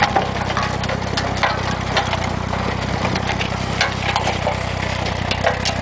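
Tractor engine running steadily as it drives a tractor-mounted trencher cutting a trench, with soil and stones clattering irregularly against the digging gear and discharge chute.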